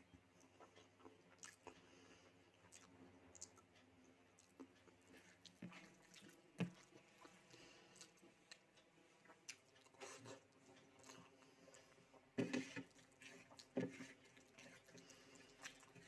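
Close, quiet eating: chewing and small mouth clicks, with a few louder clicks or taps about six and a half, twelve and a half and fourteen seconds in.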